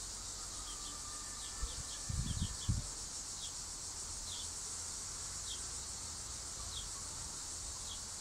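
Steady high-pitched trilling of an insect chorus, with short falling chirps about once a second and a few low thumps about two seconds in.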